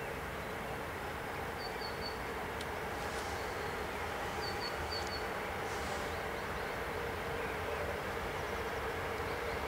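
Electric freight locomotives hauling a container train approach, a steady low rumble and hum that grows slowly louder. Two short runs of high bird chirps come through, about two and five seconds in.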